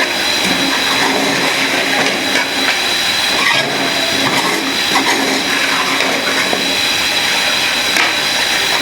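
Chicken frying in oil and masala in a pot, a loud steady sizzle with occasional small clicks.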